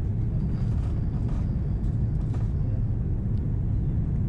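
Steady low cabin rumble of an Airbus A330-300 on final approach, heard from inside the cabin: engine and airflow noise.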